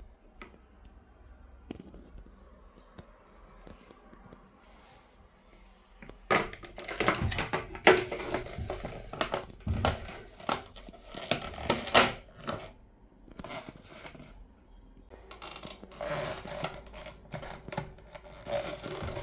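Handling noise: a quiet stretch of scattered small clicks, then a dense run of clicks, knocks and rustling from about six seconds in, easing off and picking up again near the end.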